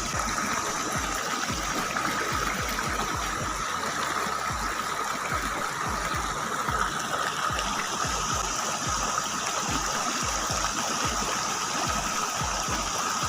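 Steady rush of flowing river water, with irregular low thumps throughout.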